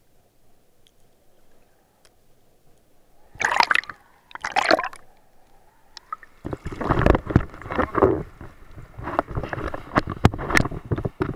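Water splashing and sloshing against an action camera at the surface of shallow sea water. Muffled and faint at first, then two sharp splashes about three and a half and four and a half seconds in, followed by continuous, irregular choppy splashing as the camera breaks the surface.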